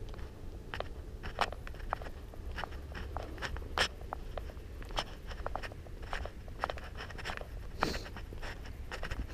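Footsteps crunching along a path: irregular crisp crunches, a few each second, over a low steady rumble.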